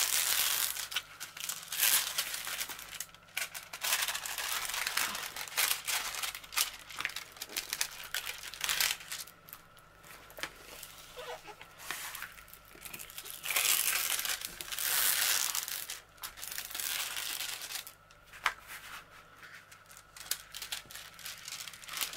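Hands rubbing and pressing down a diamond painting canvas under its clear plastic cover film to flatten it, the film rustling and crinkling in repeated strokes. The rustling is loudest for a couple of seconds past the middle.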